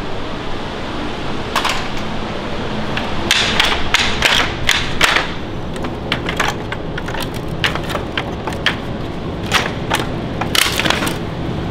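Wooden pallet boards being handled on concrete: a series of irregular knocks and clatters of wood on wood, busiest in the middle and again near the end.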